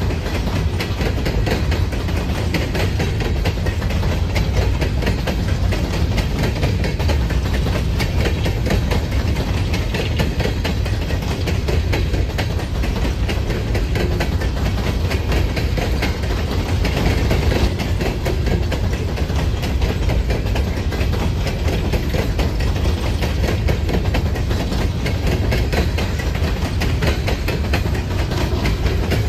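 Freight train rolling past: a steady, loud low rumble of cars on the rails with continuous wheel clatter.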